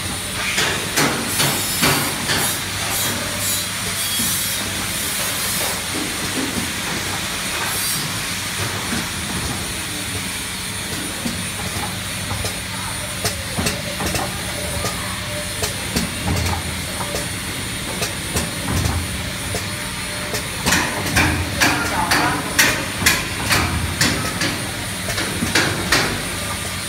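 Triangle nylon tea bag packing machine running: a steady motor hum with a thin high whine, overlaid with quick mechanical clicks and clacks from its forming and sealing stroke. The clicking is densest in the first few seconds and again over the last several seconds.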